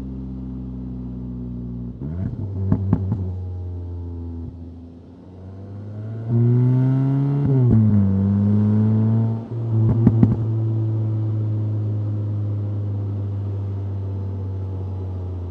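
2025 VW Golf GTI's 2.0-litre turbocharged four-cylinder running on the move. It eases off briefly, then pulls hard with revs rising for about a second before the pitch drops at a shift. Short bursts of sharp crackling come about two and a half seconds in and again about ten seconds in.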